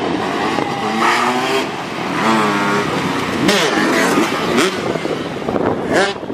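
Several small motorcycle and moped engines revving, their pitch rising and falling in repeated quick blips, with a few sharp revs near the middle and end.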